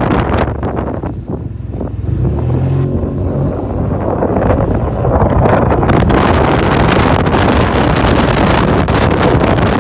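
Wind buffeting the microphone of a handlebar-mounted phone on a moving Yamaha TMAX 530 scooter, over the low hum of its parallel-twin engine. The engine hum is clearest in the first few seconds; from about three seconds in the wind rush grows louder and covers it as the scooter picks up speed.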